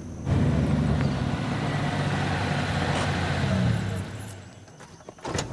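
Nissan Patrol four-wheel drive's engine running as it pulls up, dying away about four seconds in. A short knock near the end.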